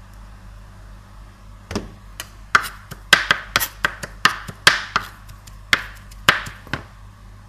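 Kitchen knife chopping minced garlic on a plastic cutting board: a run of quick, uneven, sharp blade strikes that starts about two seconds in and stops shortly before the end.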